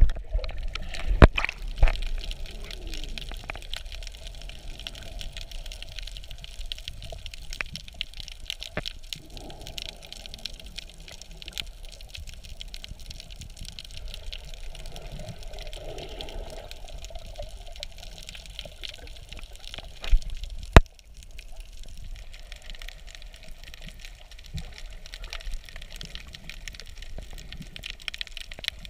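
Underwater water noise: a steady hiss with many small clicks and crackles. At the start there is a louder rush of bubbles and splashing from a swimmer's kicking, and a single sharp knock comes a little after two-thirds of the way through.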